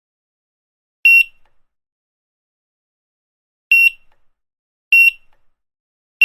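Supermarket checkout barcode scanner beeping: three short, identical high-pitched beeps at uneven intervals, with a fourth starting right at the end.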